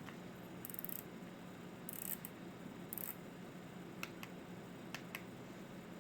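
Leobog Hi75 mechanical keyboard with stock KTT Kang White linear switches: a few isolated keystrokes, two of them heard as a press and a release click about a fifth of a second apart, after three short faint hissy scrapes.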